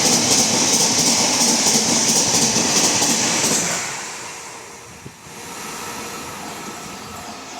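Express train passing at speed, its wheels clicking over the rail joints under a loud high hiss. About four seconds in the sound dies down as the train moves away.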